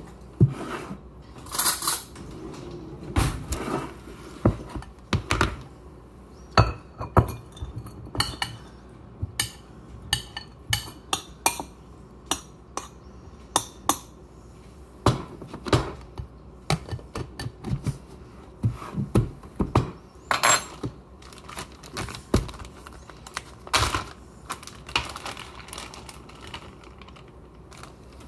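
Dishes and plastic food-storage containers handled on a kitchen countertop as food is dished into a bowl: irregular knocks, clinks and clicks, several a second at times.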